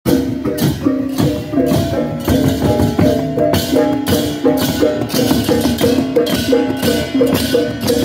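Balinese processional gamelan (baleganjur) playing: small handheld gongs struck with mallets in interlocking tuned strokes under clashing hand cymbals, in a fast steady rhythm.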